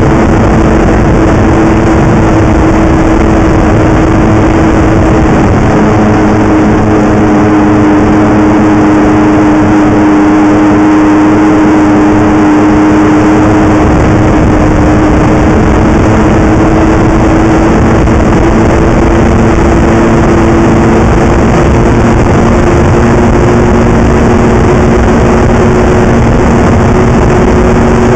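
Snowmobile engine running at steady cruising speed, its note dipping slightly and then climbing slowly, under a heavy rush of wind noise on the microphone.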